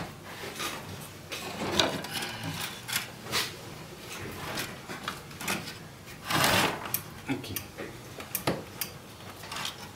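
Irregular handling noises of a steel cable being threaded through the wooden lever arm and bench of a homemade spot welder: scattered knocks, clicks and rubbing of wood and wire, with a louder noise lasting about half a second roughly six and a half seconds in.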